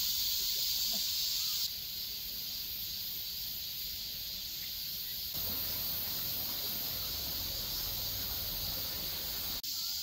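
Steady high-pitched hiss of summer insects mixed with the low, even sound of stream water in a rocky mountain valley, stepping down in level about two seconds in and back up about five seconds in.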